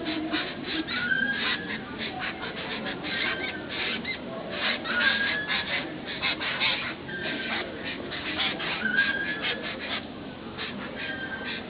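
Birds chattering and calling in a busy stream of quick, repeated chirps. A short whistled note, rising then held, comes back every couple of seconds.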